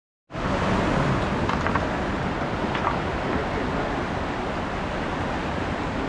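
White-water river rapids rushing steadily, an even wash of water noise.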